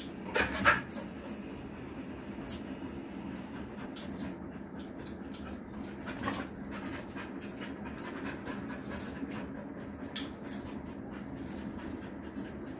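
A Rottweiler panting steadily, with scattered light clicks. A louder burst of noise comes about half a second in and another around six seconds in.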